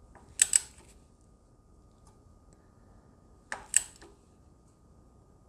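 Two pairs of sharp metallic clicks, about half a second in and again near four seconds, from the wrench on the VTC intake cam gear bolt of a Honda K24 engine as it is being torqued. The engine turns with the bolt instead of holding.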